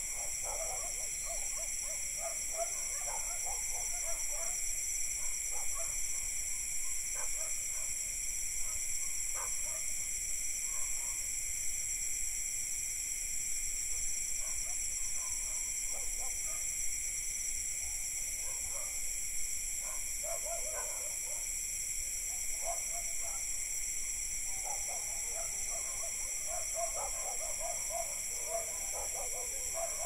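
Night insect chorus of crickets and cicadas, a steady high-pitched drone, with distant dogs barking on and off.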